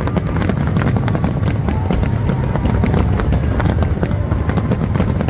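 Fireworks exploding in rapid succession: a continuous low rumble of booms with many sharp cracks and crackles on top.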